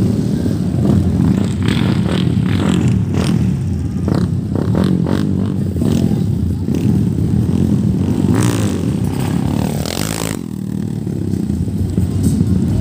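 Underbone motorcycle engines running loudly and continuously at a race, with scattered clattering. The higher part of the sound drops away suddenly about ten seconds in.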